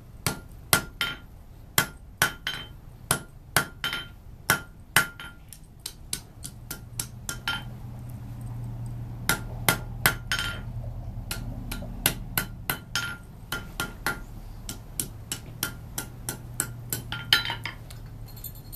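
Hand hammer striking a red-hot metal bar against the edge of an anvil to neck it down. The blows come about two a second, each with a short anvil ring, in several runs with brief pauses, and stop near the end.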